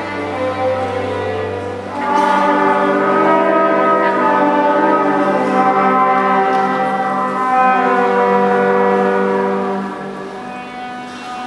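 Symphony orchestra playing, its strings bowing long held chords; the music swells louder about two seconds in and falls back softer near the end.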